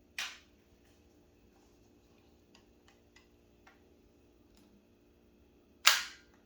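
Umarex HDR 68 carbine on HPA firing a single shot: one sharp, loud report near the end. It comes after a short click at the start and a few faint ticks.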